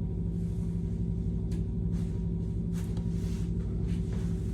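Steady low mechanical hum at an even pitch, with a few faint soft rustles.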